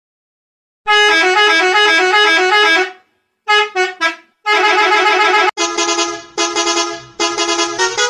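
Bus horns honking. A school bus horn gives a long blast, a few short honks and another long blast. About five and a half seconds in it cuts to a tour coach horn, a Scania by the picture, sounding a quick run of honks.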